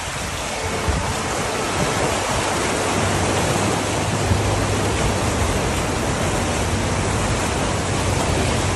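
Steady, even rushing of water with no breaks, the noise of heavy rain and running floodwater.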